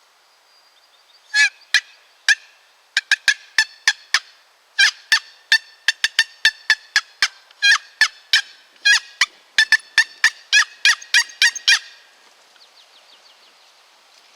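Turkey call worked by a hunter in imitation of a hen: a long string of sharp, loud yelps and cuts in quick irregular clusters, starting about a second and a half in and stopping about two seconds before the end. It is calling meant to draw in a gobbler.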